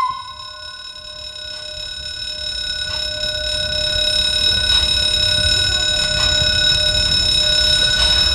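Level-crossing warning ringer sounding steadily while a small steam locomotive approaches. The locomotive's low rumble grows louder from about two seconds in.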